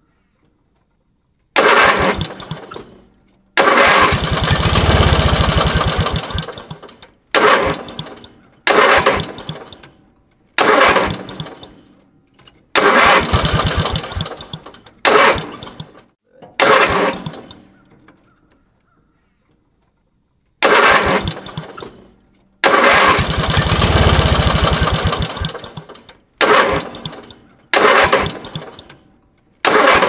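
An engine being cranked over and over but failing to start: a series of false starts, each catching briefly and dying away. Most tries last about a second, and two longer ones, about four seconds and about twenty-three seconds in, run for three to four seconds before fading.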